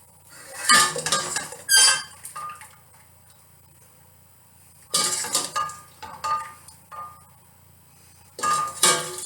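A metal utensil scraping and clinking against a pot and a bowl as the blanched vegetables are scooped out of the cooking liquid, in three bursts of clattering with pauses between.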